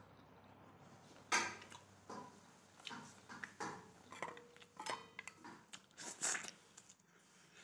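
Fingers scraping and knocking in a small stainless-steel bowl while eating curry by hand: a string of irregular clicks and scrapes, the loudest about a second and a half in, with the bowl ringing briefly a little past the middle.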